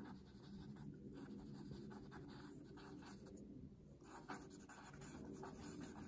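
Stick of charcoal scratching across sketchbook paper in quick, repeated shading strokes, faint and scratchy.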